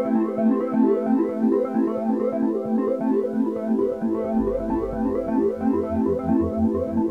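Background electronic music: quick repeating synthesizer-keyboard notes, with a pulsing bass line coming in about four seconds in.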